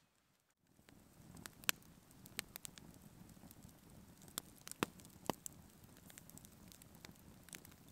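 Wood campfire burning: a faint steady rush of flame with scattered sharp crackles and pops, starting about a second in.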